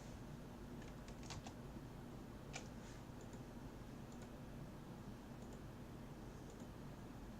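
A few faint clicks at a computer, grouped about a second in and again near three seconds, over a steady low room hum.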